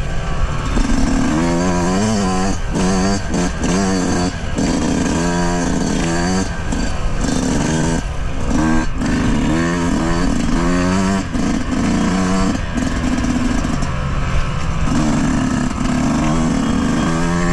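Yamaha YZ125's 125 cc single-cylinder two-stroke engine under way, revving up and dropping back again and again as the throttle is worked, its pitch climbing with each burst and falling when it's shut off.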